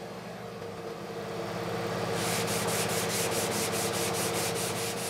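Hand block sanding body filler on a car fender: quick back-and-forth rasping strokes, about four a second, beginning about two seconds in, over a steady machine hum.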